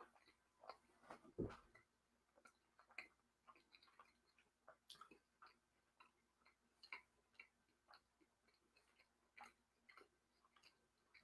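Faint, close-up chewing of a mouthful of barbecue pork riblet: soft, irregular wet mouth clicks, with one low thump about a second and a half in.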